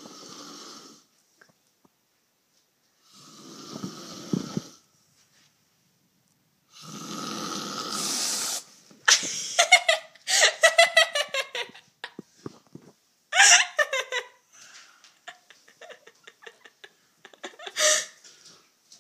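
A man snoring loudly in three long snores about three seconds apart, the third the loudest. About nine seconds in the snoring stops and gives way to short bursts of voice and laughter.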